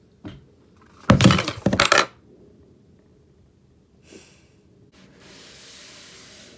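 A loud clatter of knocks lasting about a second, about a second in. Then, near the end, the steady rubbing of a cloth wiping a tabletop close by.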